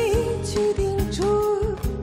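A woman singing a slow folk-song line live, holding and bending the notes, over a band with bass and drum hits.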